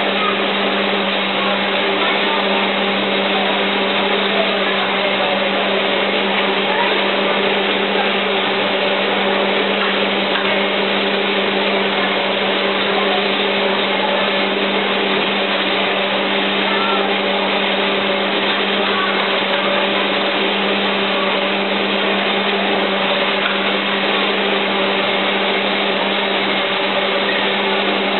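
Taffy-pulling machine running: its electric motor gives a steady hum as the arms stretch and fold salt water taffy.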